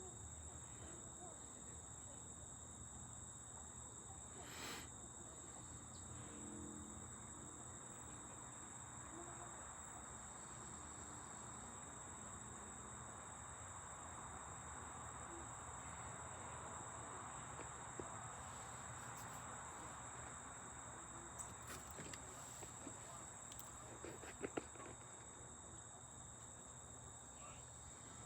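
Steady, high-pitched chorus of crickets in the backyard, running without a break. Late on, a few faint clicks and a couple of sharper ones.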